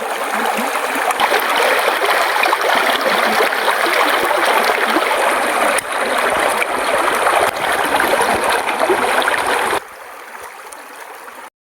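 Steady rushing, water-like noise with faint small crackles, like running water. About ten seconds in it drops suddenly to a much quieter hiss.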